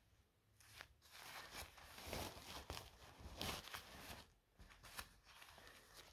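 Faint rustling and crinkling of a disposable pull-up diaper being handled, uneven and scratchy, starting about a second in with a short lull a little after four seconds.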